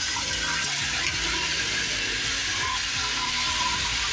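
Chicken pieces frying in hot oil and caramelized brown sugar in a metal pot: a steady, loud sizzle.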